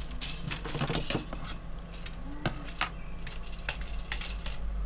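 Plastic tube segments of a breakdown hula hoop clicking and clattering irregularly as they are handled and fitted together into a ring.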